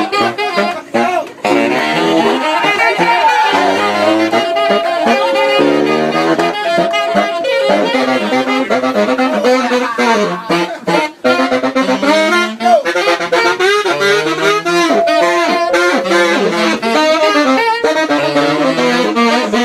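Two saxophones playing a jazz line together, one voice moving above the other in shifting notes.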